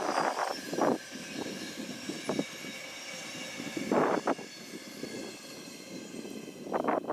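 A steady vehicle hum with faint high whining tones, typical of a train moving through the station. Gusts of wind hit the microphone at the start, about a second in, about four seconds in and near the end.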